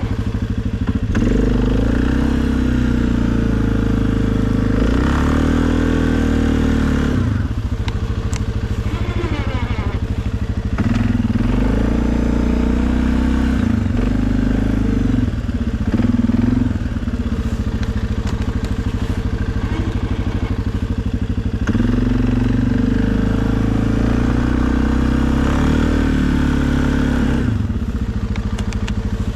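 Suzuki KingQuad ATV's single-cylinder engine running while plowing snow. It is throttled up three times, for several seconds each, the pitch rising and wavering under load and dropping back to a lower, steady run in between.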